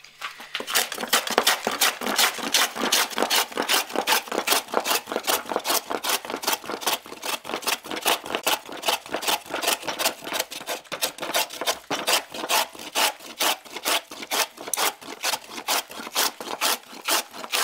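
Scrub plane cutting across a board on the diagonal in quick, regular strokes, about three a second, its blade taking heavy shavings to bring the face of the board down flat.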